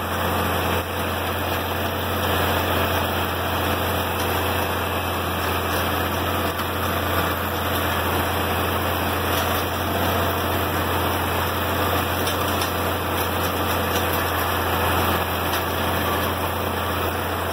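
IH 706 tractor running steadily under load while driving a Vermeer 504C round baler, which is picking up and rolling hay from the windrow. An even, unbroken machine din.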